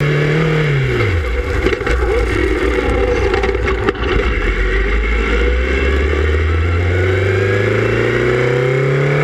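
Formula Continental race car's engine heard onboard. The revs fall to a low, steady level about a second in, then climb steadily through the last three seconds as the car accelerates. A few knocks sound in the middle.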